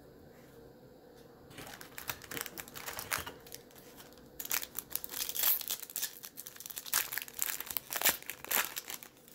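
Plastic foil wrapper of a Topps baseball card pack crinkling and being torn open by hand. It starts about a second and a half in and is louder in the second half, with irregular sharp crackles.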